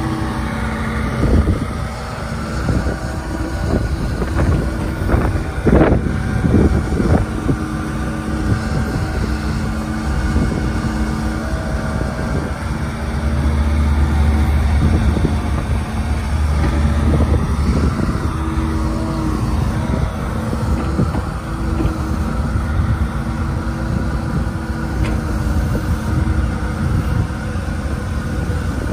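Hitachi ZX75US-3 compact excavator's diesel engine running under load as the hydraulics swing and lift the boom and bucket, with a heavier low rumble a little past the middle. A few knocks from the bucket and dirt come through early on.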